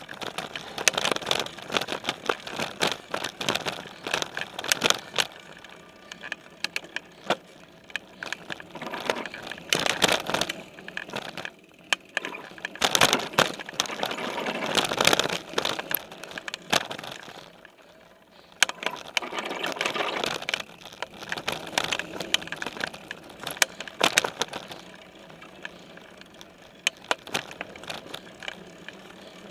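Specialized Stumpjumper mountain bike clattering and rattling over a bumpy dirt trail, picked up through its frame-mounted camera: sharp knocks and tyre noise come in rough bouts, with calmer spells between and near the end.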